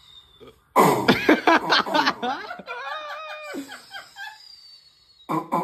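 Several people laughing loudly together, starting suddenly about a second in and dying away a few seconds later.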